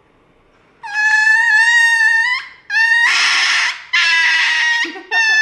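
A dog crying out with loud, high, drawn-out wails in pain and fear as it is given an injection, four cries in a row starting about a second in.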